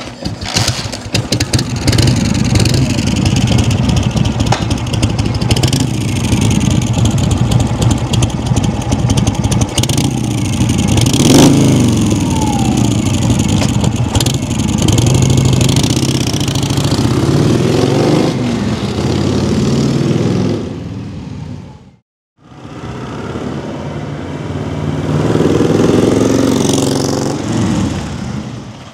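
1981 Harley-Davidson Wide Glide's 1340 cc Shovelhead V-twin running loud, with several throttle blips rising and falling in pitch. After a break near the end, the bike is heard riding off, its sound swelling and then fading.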